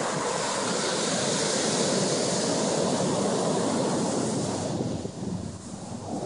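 Ocean surf breaking and washing up the beach: a loud, steady rush of water that eases off about five seconds in.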